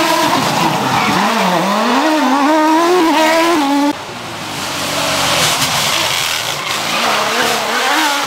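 Rally car engine revving hard, its pitch climbing and dropping with throttle and gear changes. It cuts off sharply about four seconds in, and a second rally car's engine is heard coming near and passing at high revs.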